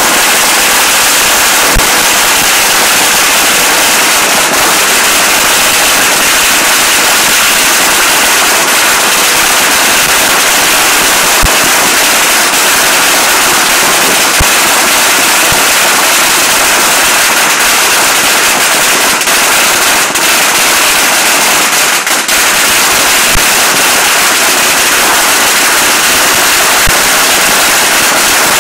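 Several long strings of Chinese firecrackers going off at once, very loud: a dense, unbroken crackle of bangs with a few sharper cracks standing out.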